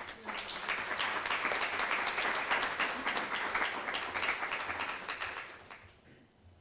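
Audience applauding, dense clapping that starts just after the name is called and dies away near the end.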